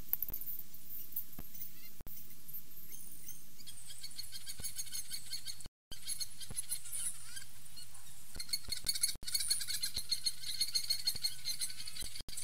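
Wild songbirds singing, many high, quick chirps and trills that thicken about four seconds in, over a faint low hum. The sound cuts out for an instant a few times.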